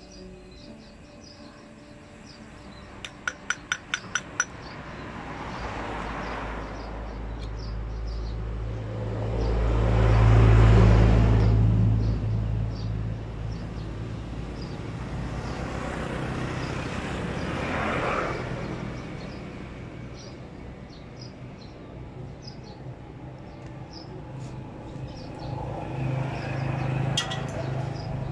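Motor vehicles passing one after another, each rising and fading away, the loudest with a deep rumble about ten seconds in. A quick run of evenly spaced clicks comes about three seconds in.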